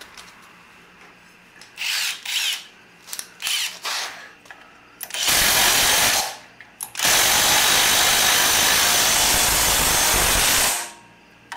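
Cordless impact driver running in the bolt that holds a golf cart engine's factory clutch on its shaft. A few short clatters come first, then a one-second burst about five seconds in and a longer run of about four seconds.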